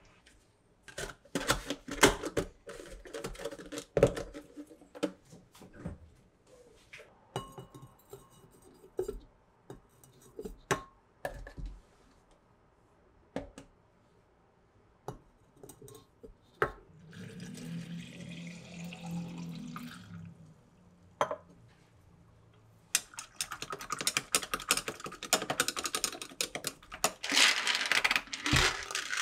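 Kitchen handling sounds: a metal spoon clinking and scraping against a glass bowl while stirring, then scattered knocks of containers set down. Liquid is poured into a glass jug partway through, and near the end there is a quick, dense run of clinking as a metal utensil stirs in the glass.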